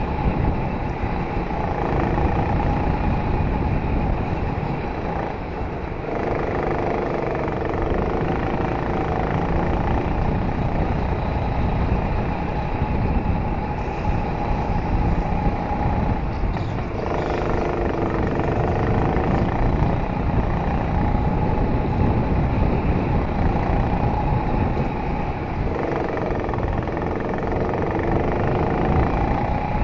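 Racing go-kart heard from on board at speed, its motor pitch climbing along the straights and dropping briefly three times as it slows for corners, over a constant rumble of tyres and track noise.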